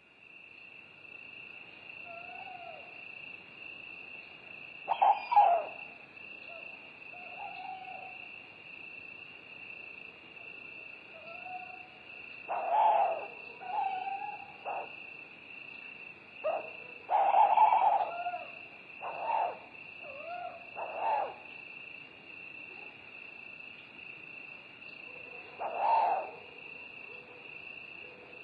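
Night forest ambience: a steady, unbroken high-pitched insect chirring, with owl hoots coming at irregular intervals, a dozen or so in all, the loudest about five seconds in and again past the middle.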